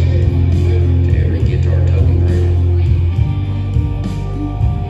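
A live band playing: electric guitars over heavy, sustained bass notes.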